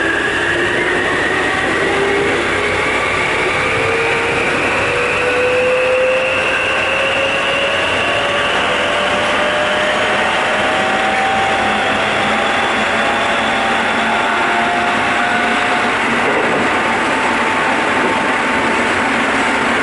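Keikyu 800 series electric train car heard from the floor above its bogie, accelerating: the traction motor and gear whine climbs steadily in pitch over the running noise and levels off about 16 seconds in. This set is known for an odd noise during acceleration and braking that other cars of the class do not make.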